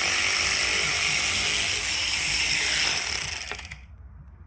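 A power tool running steadily with a hiss and a high whine, stopping about three and a half seconds in.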